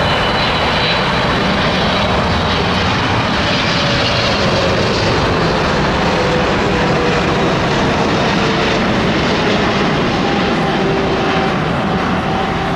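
Boeing 777 freighter's twin turbofan engines on final approach with gear down: a loud, steady jet roar with a whine that slowly falls in pitch as the aircraft passes.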